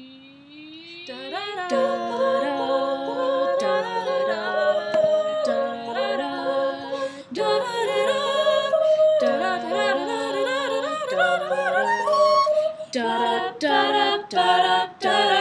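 A cappella group singing a wordless instrumental break in layered harmony. The voices glide upward at the start, then a lead melody runs over held chords and a sung bass line, turning to short choppy notes near the end.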